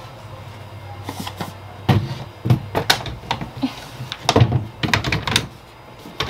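A drawer being slid into a freshly assembled flat-pack dresser on its metal runners: a quick run of knocks and clatters as the drawer bumps into the frame and its rails rattle into place.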